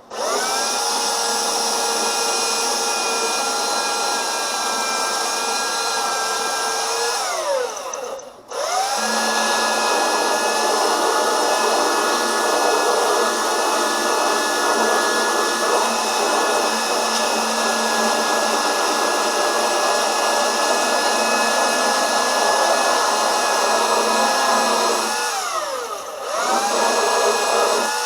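Electric power sander running at full speed while sanding car body spots. It is switched off about a quarter of the way in, its pitch falling as it winds down, and switched straight back on; near the end it winds down again and restarts.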